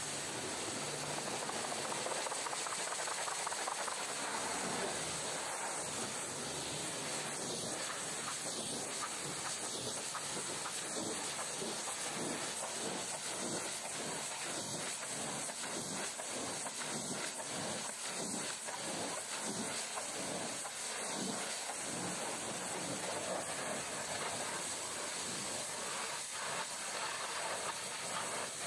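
High-pressure washer jet spraying water against a truck's cab panels and front wheel: a steady hiss of spray, swelling and fading in a regular rhythm through the middle.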